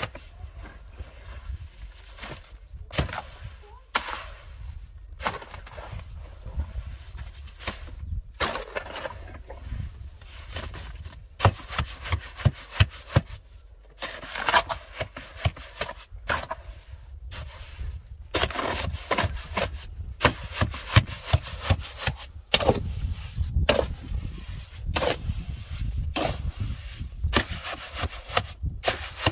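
Steel shovel scraping and scooping through a cement mix in a metal wheelbarrow, in repeated rough strokes as the mortar is turned and lifted.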